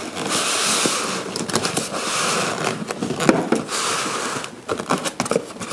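Styrofoam packing blocks scraping and rubbing against the walls of a tight-fitting cardboard box as they are worked out by hand. There are three long scraping strokes, with small knocks and clicks between them.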